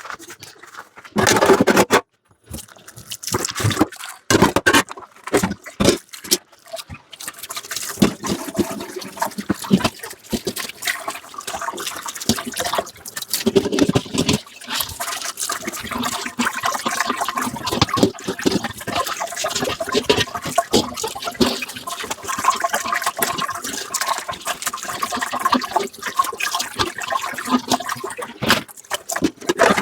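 Water from a kitchen tap splashing onto dishes in a sink, in short separate splashes and knocks at first, then running steadily for most of the time.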